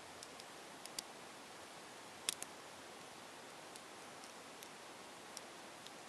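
Faint, irregular plastic clicks from the layers of a 15 mm Maru Nano cube being turned between fingertips, over a steady hiss. The clicks come singly or in pairs, with the loudest pair a little over two seconds in.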